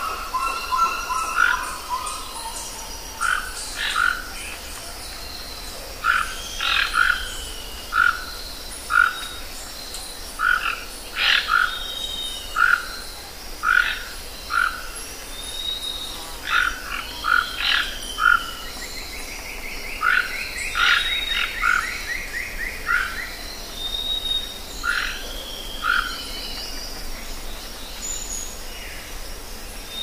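Short croaking calls, mostly in pairs, repeating every second or so, with a fast trill about two-thirds of the way through and a few thin high whistles over a faint outdoor background.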